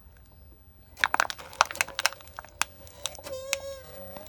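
A piece of junk cracking and crunching under a quad bike's tyre as the bike rolls slowly over it: a quick run of sharp cracks starting about a second in, then a steady whine near the end.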